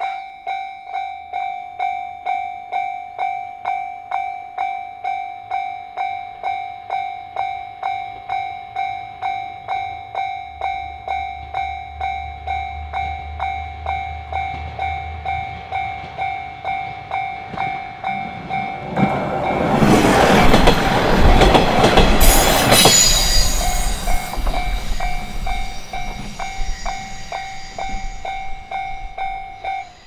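Japanese level-crossing warning bell ringing at a little under two strikes a second. About 19 s in, a Hachiko Line diesel railcar passes through the crossing, its wheels clattering over the rail joints for about five seconds and drowning the bell, which rings on afterwards.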